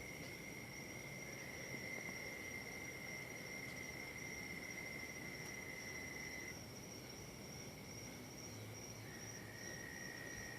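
Faint outdoor insect chorus: steady high-pitched trilling at two pitches. The lower trill stops about six and a half seconds in, and a slightly lower one starts up near the end.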